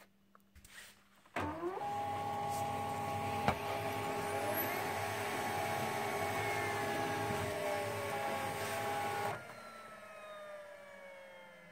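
Xerox Phaser 3117 laser printer warming up just after power-on. Its motors spin up with a quick rising whine about a second in, run steadily for about eight seconds with one sharp click partway, then cut out. A fainter whine keeps falling slowly as a motor coasts down.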